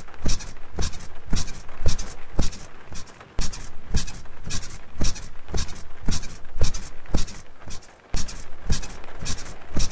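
Bed squeaking rhythmically, about twice a second, each squeak with a low thump of the mattress, over a steady hiss of rain. The rhythm breaks off briefly twice, near 3 seconds and near 8 seconds.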